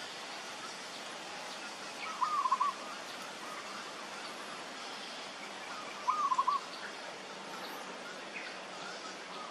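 A bird calling off-picture: a short quavering call, repeated twice about four seconds apart, over a steady background hiss.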